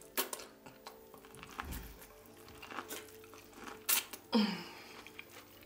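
Mouth sounds of eating sauce-covered boiled corn on the cob: a few sharp bites and clicks, with a brief hum falling in pitch a little after four seconds in, over faint background music.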